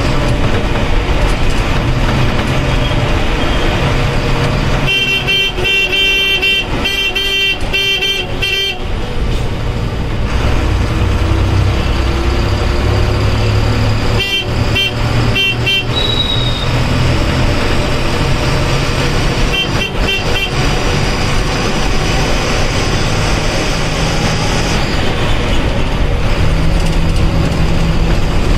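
Bus engine running and road noise heard from the driver's cab while driving, with rapid, pulsing horn toots: a long run about five seconds in, shorter runs around fourteen seconds and again near twenty seconds.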